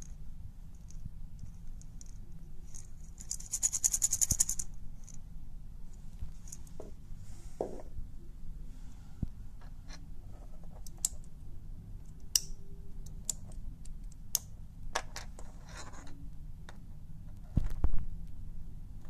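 A hand-painted wooden maraca rattle shaken for about a second, the dried peas inside rattling in a quick run of clicks. Then scattered single clicks and taps as wooden and silicone beads and a plastic pacifier clip are handled, with a soft thump near the end.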